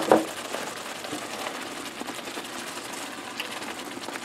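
Ham steak in salsa verde simmering in a cast iron pan: a steady crackling sizzle. Two sharp knocks come right at the start.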